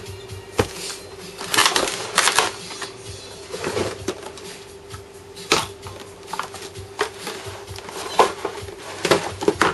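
Clear plastic blister packaging and wrapping being handled and crinkled as an RC transmitter is worked out of its tray, in irregular crackles and clicks with a few louder clusters. A faint steady hum runs underneath.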